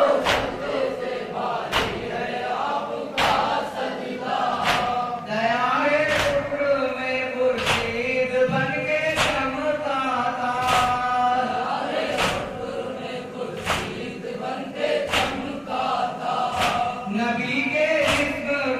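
A group of men and boys chanting a noha (Shia mourning elegy) together. They keep the beat with a unison hand-on-chest strike (matam) about once every second and a half.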